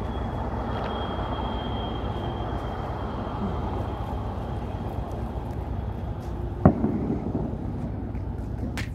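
Steady low rumble of outdoor background noise, with one sharp click about two-thirds of the way through.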